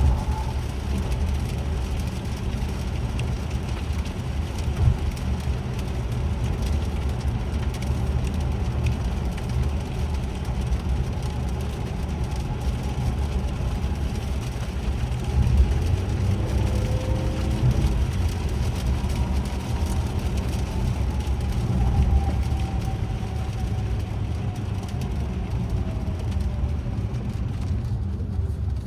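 In-cabin driving noise of a 2024 Acura TLX on a rain-soaked road: a steady low road rumble with tyre hiss. A faint whine slowly rises and falls in pitch.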